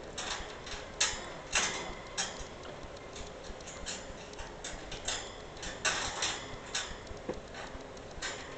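Metal C clip clicking and rattling against the wire bars of a cage as a capuchin monkey works at it: irregular sharp metallic clicks, several of them louder.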